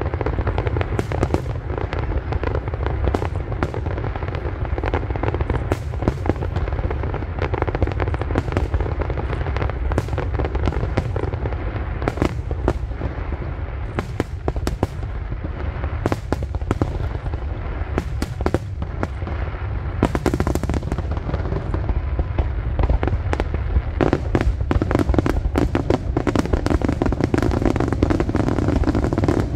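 Aerial fireworks display: a dense, unbroken run of sharp bangs and crackling pops over a constant low rumble.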